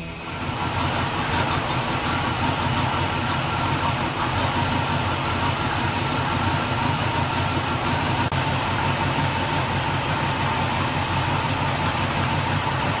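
1963 Chevrolet C10 pickup's V8 engine idling steadily.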